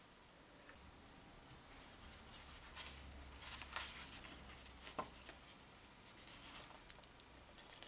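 Faint rustling and light scraping of a paper sheet being handled, with a sharp click about five seconds in.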